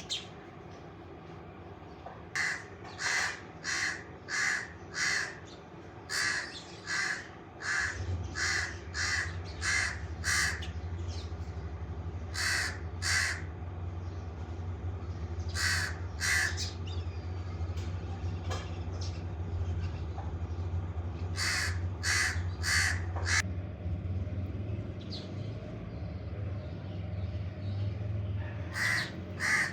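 A crow cawing in runs of short, evenly spaced harsh calls, several bursts of four to six caws with pauses between. A steady low hum sets in about a quarter of the way through and fades near the end.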